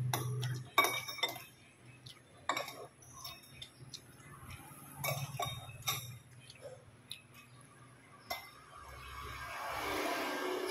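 Spoons and forks clinking against ceramic noodle bowls while eating, in scattered sharp clinks. Near the end a rustling noise swells as a plastic water bottle is handled.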